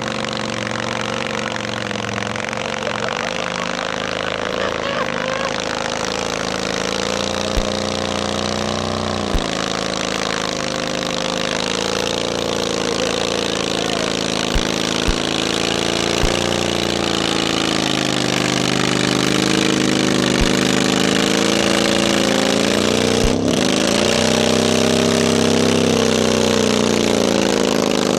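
Four-stroke motorcycle engine held at high revs in a burnout, its rear tire spinning against the pavement. The engine pitch dips and recovers about nine seconds in and again a little after twenty seconds, and the sound grows louder toward the end.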